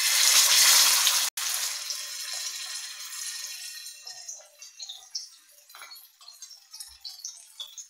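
A piece of marinated fish laid into hot groundnut oil on a dosa griddle, sizzling loudly at once. The sizzle breaks off for an instant just over a second in, then fades over the next few seconds into scattered crackling and popping.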